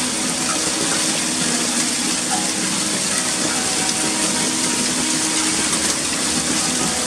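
Hailstones and heavy rain falling on tiled roofs and paving: a dense, steady hiss.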